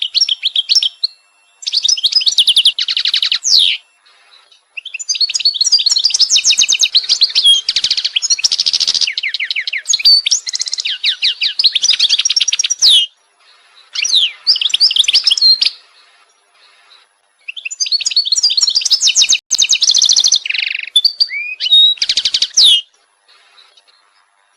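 A songbird singing in long phrases of rapid chirps and trills, pausing briefly between phrases.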